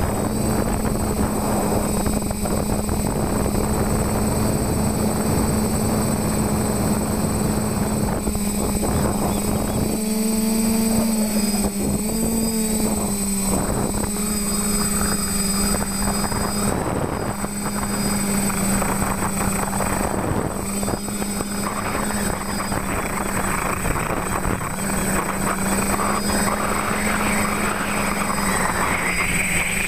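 TBS Discovery quadcopter's electric motors and propellers running steadily, heard close up through the camera it carries, over a rushing hiss of air. The whine's pitch dips and wavers for a few seconds about a third of the way in.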